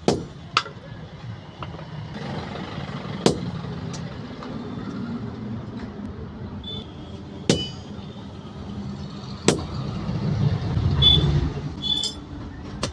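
Drilling iron in a blacksmith's shop: a steady low machine hum that grows louder about ten to eleven seconds in, with a sharp metallic knock every few seconds and ringing metal clinks near the end.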